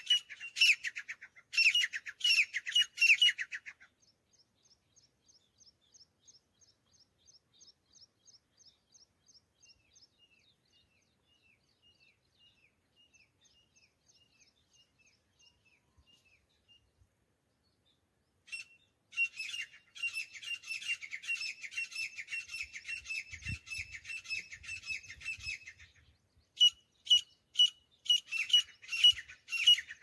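Grey francolins calling: loud, rapidly repeated high calls at the start, fainter rapid calls through the middle, then loud repeated calling again for the last ten seconds or so.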